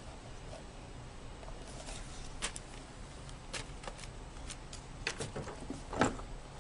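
Scattered light clicks and taps, with one louder knock near the end.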